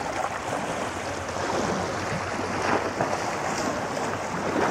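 Steady rushing outdoor background noise, without any clear distinct sound standing out.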